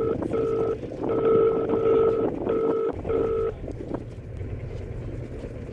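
Experimental industrial noise track: a steady electronic tone stutters on and off in short bursts over a low rumbling noise drone. The tone stops about three and a half seconds in, leaving the drone.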